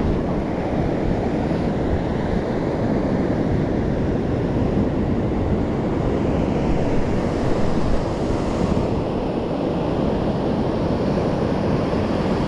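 Ocean surf breaking and washing up the beach in a steady, even rush, with wind buffeting the microphone.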